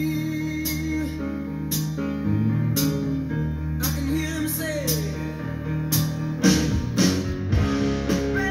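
A song with singing, guitar and drums playing through a Marantz 2238B stereo receiver and Sony SSU-4000 speakers, with the receiver's treble control turned all the way up.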